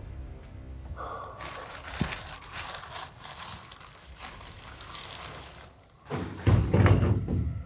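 Crackling and crunching noises, dense from about a second and a half in, then a brief pause and a louder dull low rumble lasting about a second near the end.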